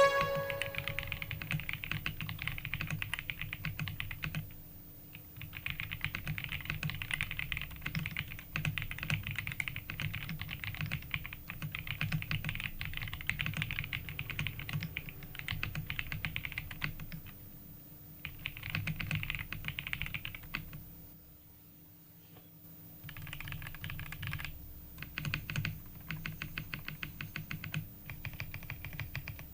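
Typing on an Ajazz AK820 Max Plus gasket-mount mechanical keyboard with pre-lubed Flying Fish linear switches, a creamy-thocky sound. Rapid, continuous keystrokes break off briefly about five seconds in and again around twenty-one seconds.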